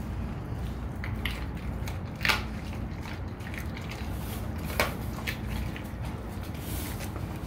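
A Rottweiler chewing a raw chicken back, its teeth crunching through the bones in a scatter of cracks. Two sharp cracks, about two seconds in and just before five seconds, stand out as the loudest.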